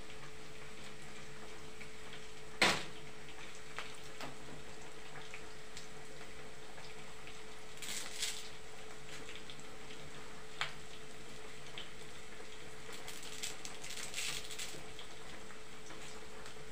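A cooking utensil knocking and scraping against a small saucepan as noodles are stirred: one sharp knock about two and a half seconds in, then scattered lighter clinks and a short run of scrapes near the end, over a steady hum.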